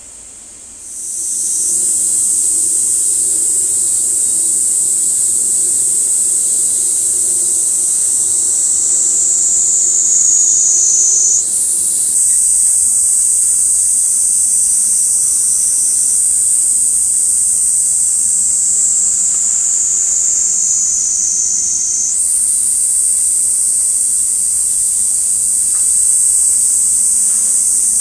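Cicadas singing in a loud, high, continuous buzz that comes in about a second in. Twice it slides slowly down in pitch and then jumps back up.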